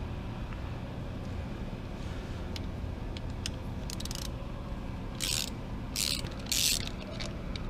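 Hand ratchet clicking in three short bursts, about five to seven seconds in, as the last clutch cover bolt is worked loose, with faint tool handling before.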